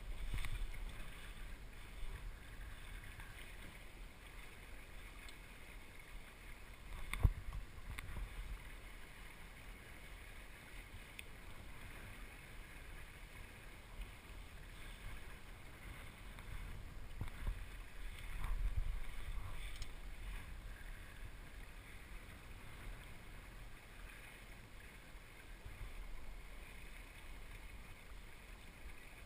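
Water washing along the hull of a small El Toro sailing dinghy under sail, a steady rushing with low swells now and then. A single sharp knock about seven seconds in.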